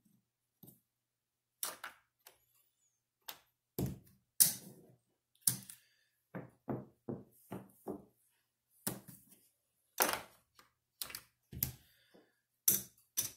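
Gaming chips clicking and clacking as they are picked up, stacked and set down on a craps table to place bets: a string of separate sharp clicks at an uneven pace.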